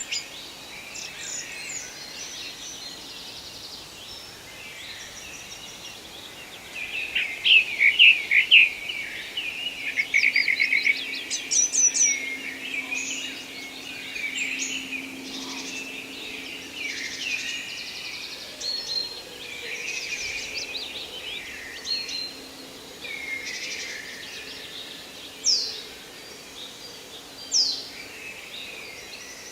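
Forest birdsong from several birds, with overlapping chirps and trills, over a quiet steady background hiss. It is busiest and loudest from about seven to thirteen seconds in, and a few sharp single notes stand out near the end.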